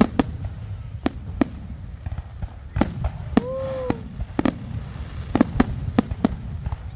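Fireworks exploding in a run of sharp bangs over a steady low rumble, with the bangs coming closer together in the second half. About halfway through, a brief tone rises and falls.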